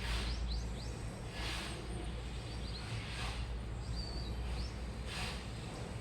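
Washing machine running a wash cycle: a steady low motor hum with a whoosh of sloshing water and laundry about every one and a half to two seconds, four times.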